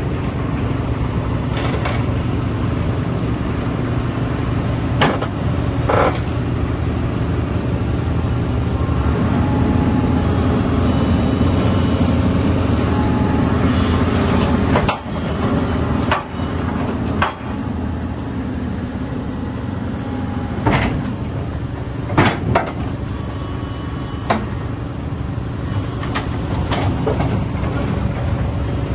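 Doosan 225LCV tracked excavator running on its diesel engine as it crawls off a lowboy trailer, a steady low drone. Sharp metal clanks come every few seconds as the steel tracks shift on the trailer deck.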